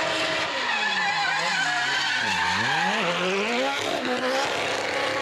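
A 500 hp Nissan 180SX (RPS13) drift car sliding sideways with its tyres squealing, the engine revs falling to a low point about two and a half seconds in, then climbing again.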